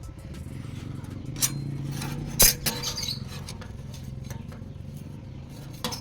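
A few sharp metallic clinks of steel parts or tools being handled, about three over the stretch, over a low steady hum.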